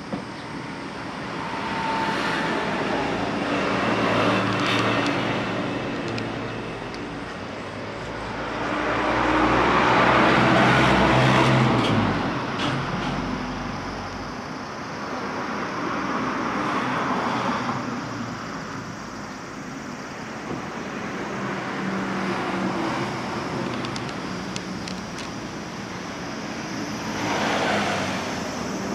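Road traffic going by: cars and trucks pass one after another, each swelling and fading over a few seconds, the loudest a heavy rumbling pass about ten seconds in and the last a small kei truck near the end.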